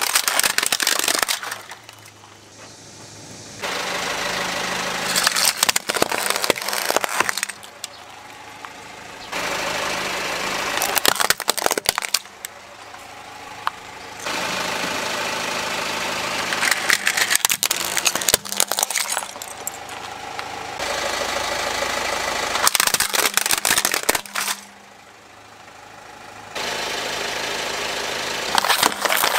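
Car tyre rolling over and crushing plastic toys and water-bead-filled plastic bottles: sharp cracking and crunching of plastic over the car's engine running. The sound comes in several short clips, each cutting off abruptly.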